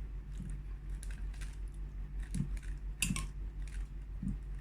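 Light clinks and clicks of a spoon and bowl being handled for a meal, a few scattered taps with the sharpest a little after three seconds in, over a steady low hum.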